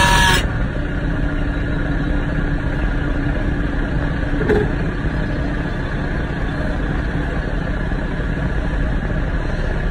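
Small front-loader tractor's engine idling steadily while the tractor stands still, with a brief rustling noise at the very start.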